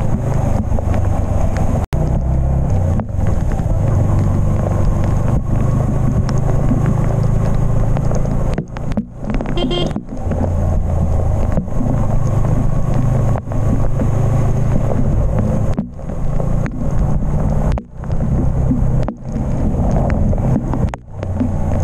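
Yamaha MT-15's single-cylinder engine running steadily under way, with wind rushing over the small action-camera microphone. The sound dips briefly several times.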